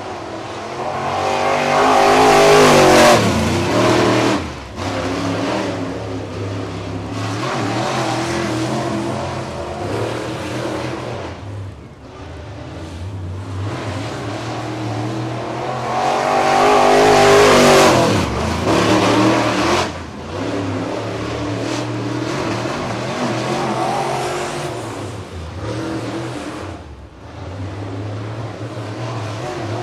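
Dirt late model with a 602 crate V8 lapping a dirt oval. It gets loud as it passes about three seconds in and again near eighteen seconds, with the pitch rising on the throttle and dropping away, and runs fainter around the far side between passes.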